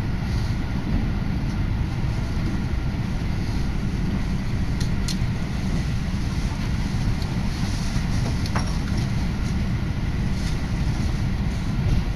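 Electric commuter train running at speed, heard from inside the carriage: a steady low rumble of wheels and motors, with a few faint clicks partway through.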